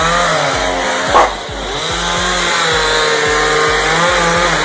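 Chainsaw running and being revved while a tree is cut down, its pitch rising and falling, with one short loud crack about a second in.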